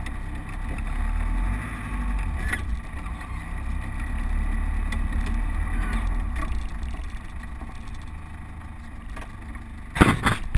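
Land Rover Defender running, heard from inside the cab as a steady low rumble. Near the end come a few sharp, loud knocks.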